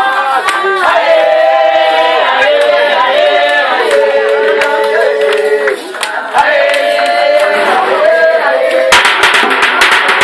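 A group of voices singing a chant over beaten skin drums. About nine seconds in, the drumming turns louder and denser.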